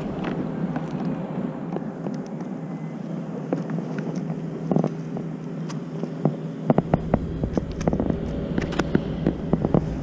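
Wind on the microphone with scattered clicks and knocks as a freshly caught bream is handled in a landing net on a kayak. The knocks come thickest in the second half, where a heavier wind rumble also sets in.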